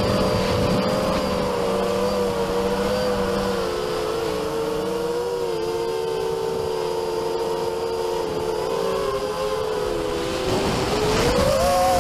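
Multirotor drone's electric motors and propellers whining in flight, heard from the camera on board: several close pitches that waver together, with wind rumble underneath. Near the end the pitch rises as the motors speed up.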